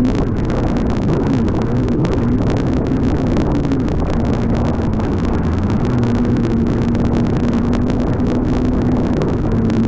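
Personal watercraft (jet ski) engine running at speed over open-ocean chop: a steady drone whose pitch wavers, then holds even for a few seconds near the end, under a constant wash of wind and water noise.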